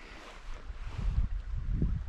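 Wind buffeting the microphone in irregular low rumbling gusts that build up about halfway through, over a faint wash of flowing river water.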